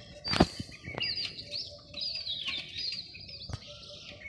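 Small birds chirping in quick, short, high calls throughout. A sharp knock comes about half a second in, and a lighter one comes near the end.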